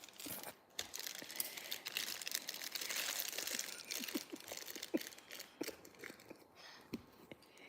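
Quiet crinkling and rustling, with scattered light clicks and taps, as toy pieces and their plastic packaging are handled.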